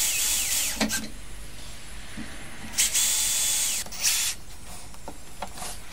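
Makita cordless drill driver driving screws into a chipboard wardrobe rail in short runs: one at the start, a longer run of about a second in the middle, then a brief blip.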